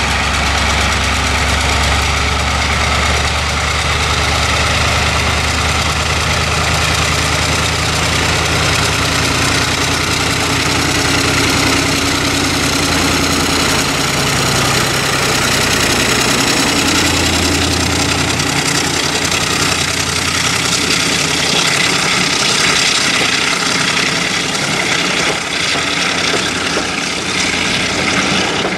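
Class 35 Hymek diesel-hydraulic locomotive's Maybach V16 diesel engine working hard under load, hauling a train, with a deep steady engine note. About two-thirds of the way through the engine note fades and the passing coaches leave a steady rumble of wheels on rail.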